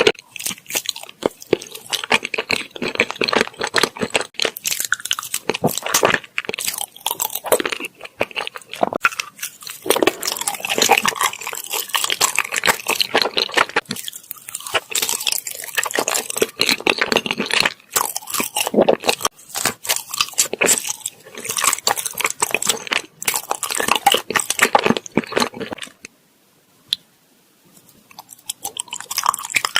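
Close-miked chewing of soft fruit-shaped rice cakes: continuous, irregular mouth and food sounds. Near the end there is a short pause, broken by a single small click.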